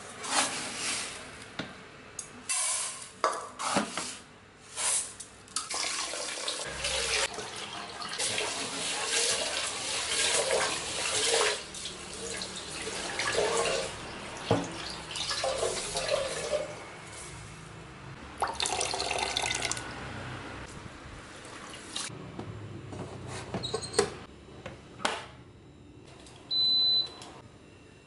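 Raw rice scooped and rattling, then tap water running into a rice-cooker pot as the rice is rinsed and swished by hand. Near the end a Yong Ma rice cooker's control panel gives one short electronic beep at a button press.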